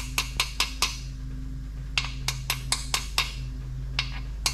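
Small hammer tapping a DOD/AFM oil-port plug down into an LS V8 engine block's lifter valley, metal on metal. It is a quick run of light taps, a pause of about a second, then another run and two last taps. This seats the plug that blocks off the DOD oil port for the AFM delete.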